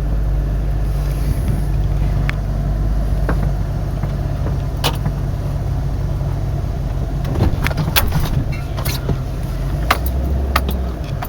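Pickup truck engine running steadily, heard from inside the cab, with a few sharp clicks and knocks scattered through.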